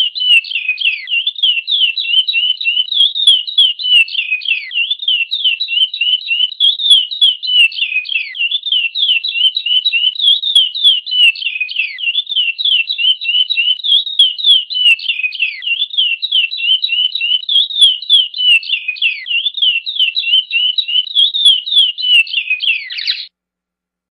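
Chestnut-bellied seed finch (curió) singing its 'praia' song type: a fast, unbroken run of whistled notes, many sliding down in pitch, which stops abruptly near the end.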